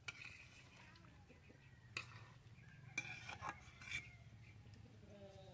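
Faint clinks and scrapes of a spoon stirring curry in a cooking pot, with a few sharp clicks about two, three and four seconds in.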